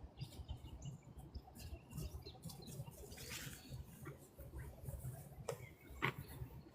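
Footsteps crunching and rustling through dry fallen leaves, a run of irregular crackles with soft thuds, the sharpest crackle about six seconds in.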